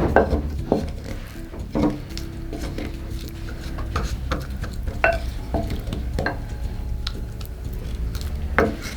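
A utensil clicking and scraping against a bowl while stirring a thick cornstarch-and-water mixture (oobleck), in irregular knocks.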